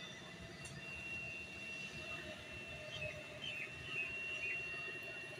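Outdoor background noise: a steady low rumble with a thin high tone held throughout, and a few short faint chirps about three to four seconds in.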